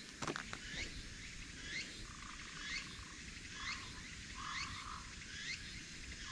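Wild animal calls: a short falling chirp repeated about once a second, with a lower buzzing trill coming and going in between. A few light clicks near the start.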